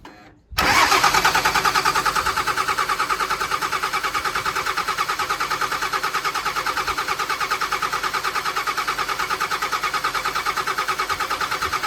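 Doosan excavator's diesel engine running after the intercooler side-plate repair, starting abruptly about half a second in and holding a steady, fast, even pulse.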